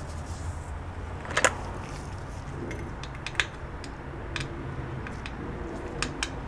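Light metallic clicks and taps from hands and a small tool working on a cable modem's circuit board, heatsink and metal shield: a quick double click about one and a half seconds in, single ones later, and another pair near the end, over a steady low hum.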